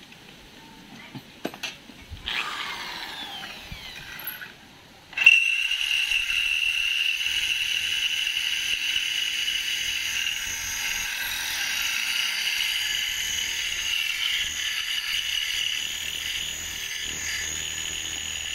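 Corded electric drill boring a hole through a steel angle bar. A short run about two seconds in spins down, then from about five seconds in the drill runs steadily with a constant whine as the bit cuts the metal.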